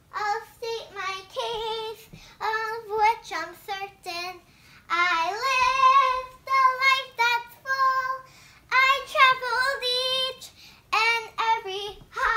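A young girl singing without accompaniment, in short high-pitched phrases with a few longer held notes.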